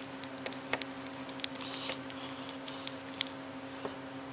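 Faint scattered clicks and ticks of a screwdriver turning small screws into the plastic cover of a snowmobile throttle block and of the block being handled, over a steady low hum.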